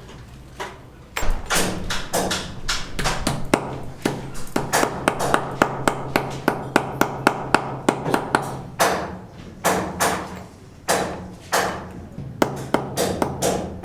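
Hammering: repeated sharp blows, in a quick even run of about two to three a second in the middle and in looser groups either side, over a faint steady low hum.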